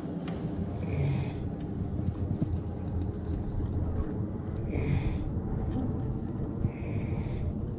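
Spinning reel being cranked, a steady low grinding rumble carried through the rod, as line is wound in on a hooked fish. Short higher-pitched buzzes break in about a second in, around five seconds and again near seven seconds.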